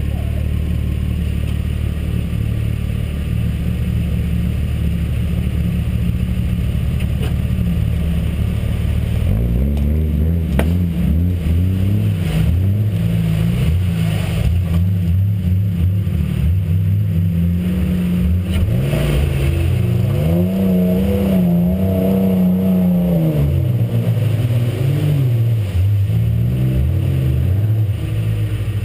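4x4 truck engine idling steadily, then revved up and down again and again from about a third of the way in.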